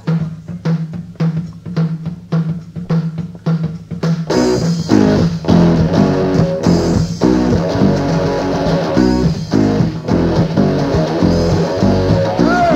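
Rock band opening a song: electric guitar and bass play a steady pulsing riff over drum hits at about four beats a second. About four seconds in, the full band comes in louder.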